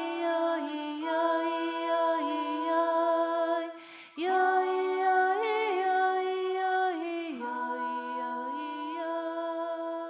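Soft, slow background music of wordless, hummed-sounding vocal chords, each held for a second or more, with a short break about four seconds in.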